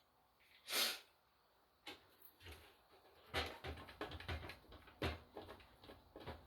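A short rushing noise about a second in, then a run of irregular light clicks and knocks as objects are handled on a hard surface.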